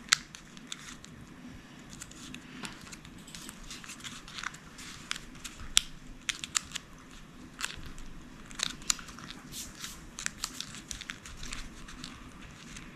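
Folded coloured origami paper handled and pressed by hand: irregular crinkling and crackling with a few sharper snaps of the creased paper.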